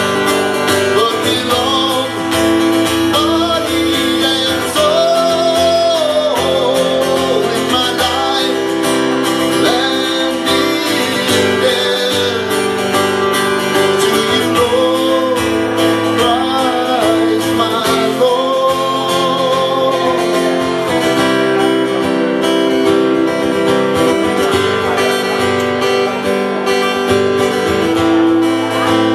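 Live contemporary Christian song: a man singing with a strummed acoustic guitar. The singing stops about two-thirds of the way through, leaving the guitar playing on alone.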